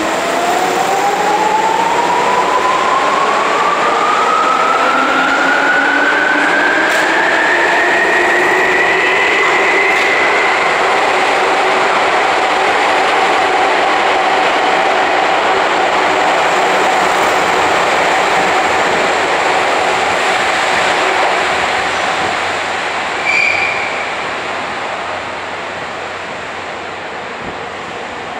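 A Tokyu 8500 series electric train pulls out of an underground station. The whine of its traction motors and gears rises steadily in pitch for about ten seconds as it accelerates, over the rumble of the passing cars. The running noise then fades as the train goes into the tunnel, with a brief high squeal a little over twenty seconds in.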